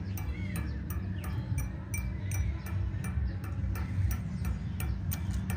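A steady ticking rhythm, about four ticks a second, over a low steady rumble.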